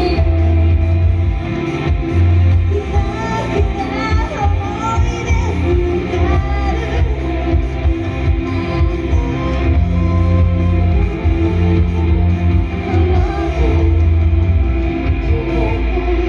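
Live idol-pop song: women's voices singing over a loud band-style backing track with heavy bass and drums.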